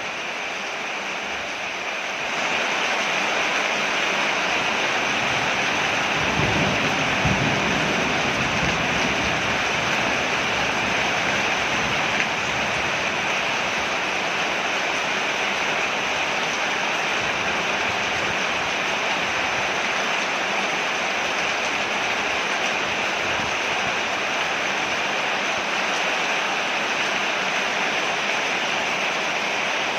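Steady rain falling on a porch, growing louder about two seconds in, with a low rumble between about six and nine seconds in.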